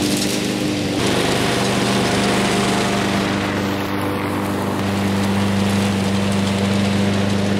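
Troy-Bilt TB360 walk-behind mower's small gas engine running steadily under load while cutting grass, passing close by and then moving away.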